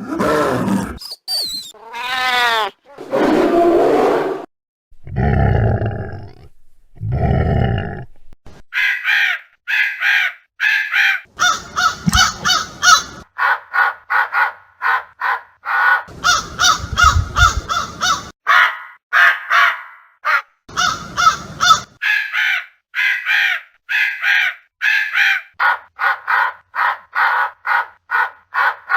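Crows cawing in rapid, repeated harsh calls, about two or three a second, taking over about eight seconds in. They follow a few seconds of intro sound effects: sweeping pitch glides and low, heavy sounds.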